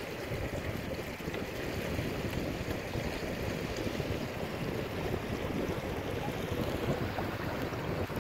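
Steady wind rushing and buffeting over the microphone aboard a small sailing catamaran under way, with water washing along the hulls.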